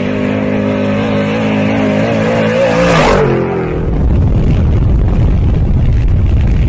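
Off-road vehicle engine running and then revving higher, its pitch climbing up to about three seconds in. After that comes a rough, loud low rumble of engine and wind noise.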